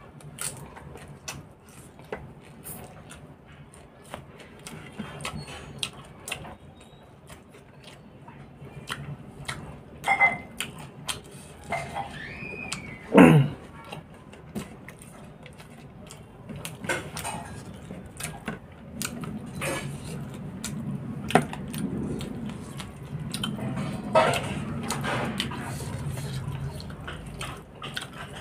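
Close-up eating sounds of rice and curry eaten by hand: wet mouth clicks, chewing and lip smacks, with fingers mixing rice on a plate. Over a steady low hum, there is one louder wet sound about halfway through.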